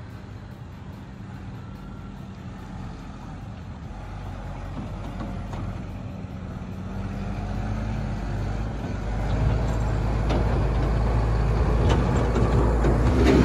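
Massey Ferguson tractor's diesel engine running as it drives up towing a feed-out wagon, getting steadily louder as it approaches, with a couple of clanks near the end.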